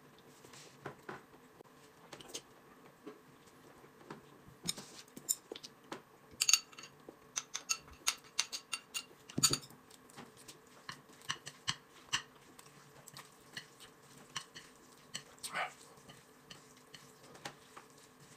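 Irregular light clinks and taps of a spoon and chopsticks against a ceramic bowl and plate as chili sauce is scooped onto noodles and stirred in. The loudest clinks come about six and nine seconds in.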